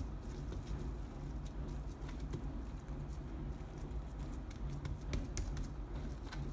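Plastic cling film crinkling and crackling in many short irregular ticks as hands handle and wrap a log of cookie dough, over a steady low hum.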